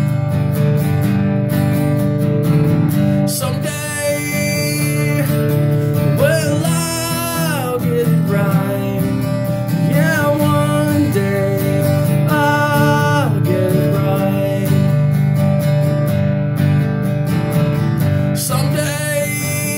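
Acoustic guitar strummed steadily in a country-rock song, with a man's voice singing a few long, sliding notes over it.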